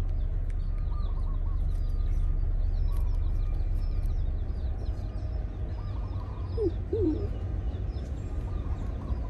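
Birds chirping: many quick, high chirps throughout, over a steady low rumble. About two-thirds of the way through, two short, louder, lower calls come close together.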